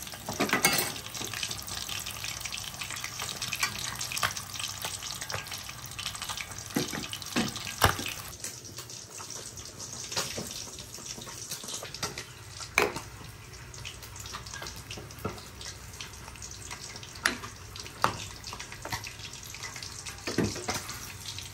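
Whole fish deep-frying in a wok of oil, a steady sizzle with crackling. After about eight seconds it gives way to a quieter pot of prawn soup bubbling on the stove, with occasional sharp clicks.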